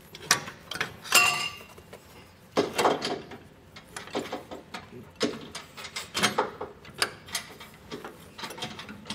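Irregular metal knocks and clinks as an air helper spring's bag and bracket assembly is worked into place under a truck's rear axle. One knock about a second in rings briefly, and there are clusters of clatter at around three seconds and again after the halfway point.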